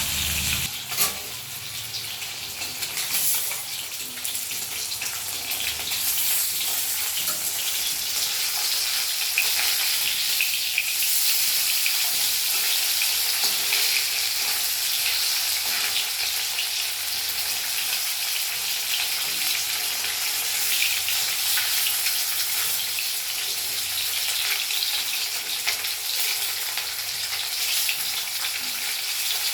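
Bhetki (barramundi) fish pieces frying in hot oil in a pan: a steady sizzle with fine crackling, and a sharp knock about a second in.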